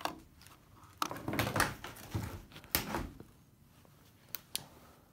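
A small plastic digital thermometer being handled and set down on a wooden table by a gloved hand: rustling and light knocks through the first three seconds, then two short clicks a little after four seconds in.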